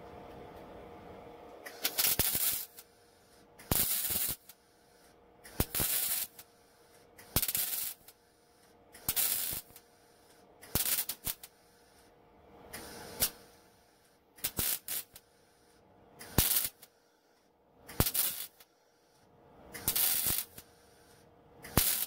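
MIG welder laying a row of spot welds on sheet metal: about a dozen short crackling arc bursts, each under a second, repeated roughly every two seconds, with a low hum between them.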